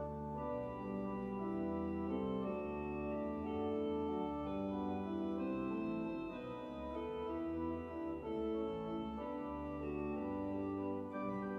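Church organ playing a prelude: held chords that change about once a second over low bass notes.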